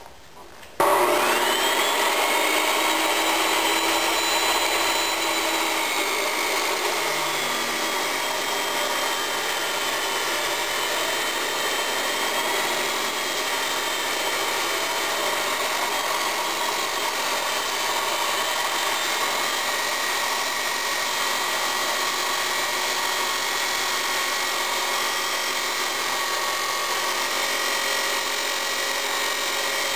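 Abrasive chop saw starting up about a second in, its motor whine rising as it comes up to speed, then cutting steadily through a clamped steel piece, the abrasive wheel grinding with a steady whine.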